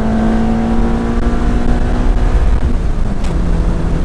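Honda Element's 2.4-litre four-cylinder engine at full throttle in second gear, heard from inside the cabin, its pitch climbing steadily. About two and a half seconds in, the revs drop and it carries on at a lower pitch.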